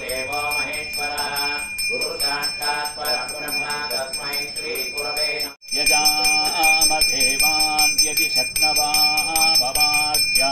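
A puja hand bell ringing continuously while priests chant Sanskrit mantras in a sing-song voice. The sound drops out for a moment a little past halfway.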